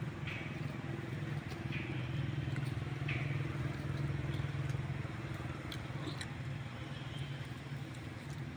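A steady low motor hum, with three short high squeaks in the first three seconds.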